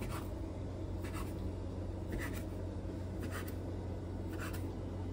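Kitchen knife slicing a roll of potato dough into kopytka on a wooden board: a short scrape of the blade on the board about once a second. A steady low hum runs underneath.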